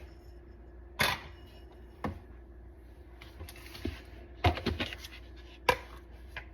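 Sharp clicks and knocks from the coffee maker being handled: single ones about a second and two seconds in, a quick run of several around four and a half seconds, and one more near the end, over a faint steady hum.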